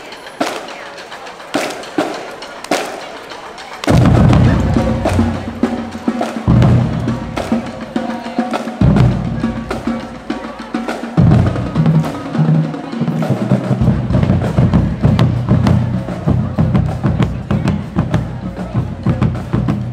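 Scattered sharp drum hits, then about four seconds in loud music with drums and a heavy bass line that shifts between notes in blocks.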